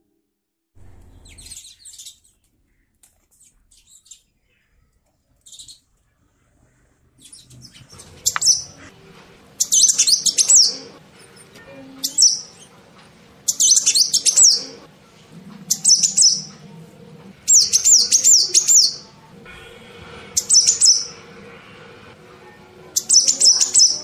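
House sparrows chirping: a few faint chirps at first, then from about eight seconds in loud bursts of rapid, high chirps, each about a second long, repeating about every two seconds.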